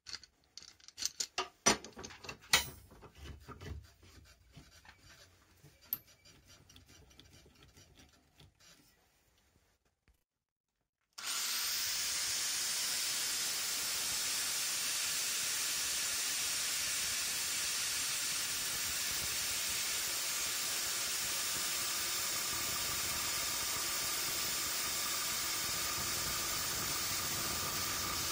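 A few scattered clanks and knocks from steel plates being handled. Then, after a short silence, an angle grinder with a cut-off disc starts about eleven seconds in and runs steadily, cutting through a steel plate.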